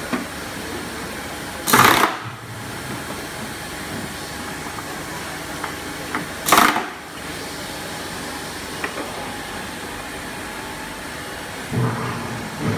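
Six-nozzle filling machine for 25-litre jerrycans running with a steady hum, with two short loud hissing bursts, about two seconds in and again near seven seconds. A few light knocks of the plastic cans being handled, and a duller knock near the end.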